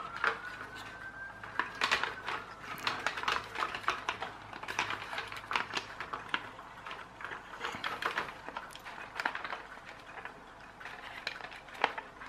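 Hard plastic parts of a toy RC tank turret clicking and knocking as they are handled and fitted together, with an irregular run of small taps and clicks.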